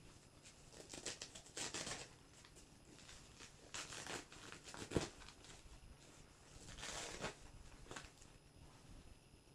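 Hook-and-loop (Velcro) padded dividers inside a camera backpack being pulled loose and pressed back into place: several short ripping and rustling strokes of nylon, with one sharp click about five seconds in.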